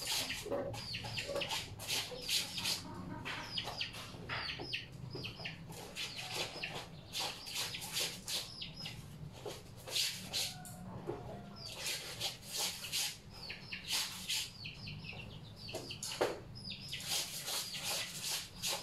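Wet clothes being scrubbed by hand in a plastic tub: quick rubbing strokes, about four a second, in runs with short pauses between.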